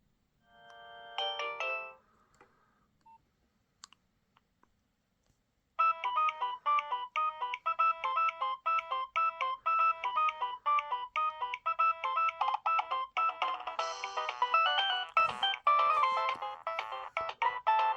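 Nokia 6030 mobile phone playing polyphonic ringtones: a short chime-like phrase ends about two seconds in, followed by a few faint clicks. About six seconds in, a new ringtone starts, a fast busy melody of quick repeated notes that grows fuller about thirteen seconds in.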